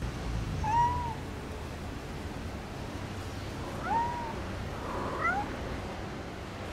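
Cat meowing: three short, high meows, about a second in, near four seconds in and again about a second later, over a low steady background rumble.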